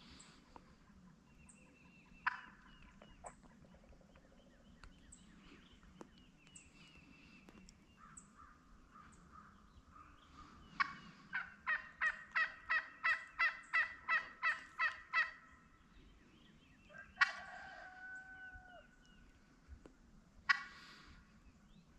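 Wild turkeys calling: a hen's run of about a dozen evenly spaced yelps, starting about eleven seconds in, and a gobbler answering with single louder calls about two seconds in and twice near the end.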